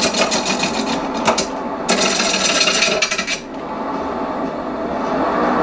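Union Jubilee wood lathe with a turning tool cutting an out-of-round wooden blank: the tool knocks against the blank's high spots in quick, even strokes, about eight a second. The cutting pauses briefly about a second and a half in, resumes, and stops about three and a half seconds in, leaving the lathe running.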